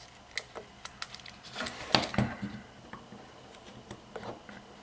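Small metal contacts and plastic parts of a pressure switch being handled and fitted by hand: scattered light clicks and taps, with a louder clatter of knocks about two seconds in.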